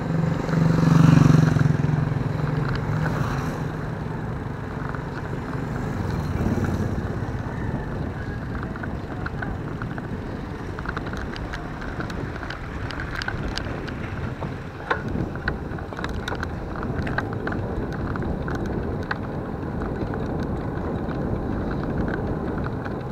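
Vehicle travelling along a paved road: steady engine and road noise with wind on the microphone. A louder, low engine tone swells up about a second in and fades, and scattered rattling clicks come through in the second half.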